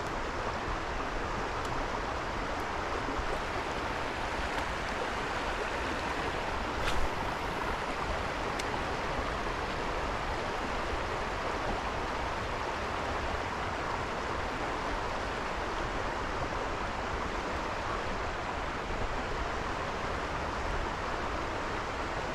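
Creek water running steadily, an even rushing noise, with one short sharp click about seven seconds in and a fainter one soon after.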